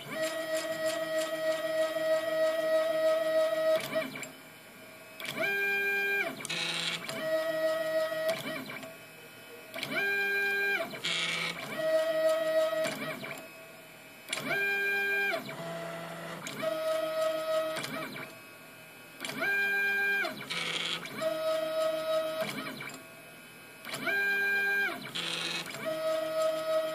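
RepRap 3D printer's stepper motors whining as the print head moves. A cycle repeats about every four and a half seconds: a steady tone, then a set of tones that rise in pitch as each move starts and fall as it stops, and a brief hiss, with short quieter pauses between.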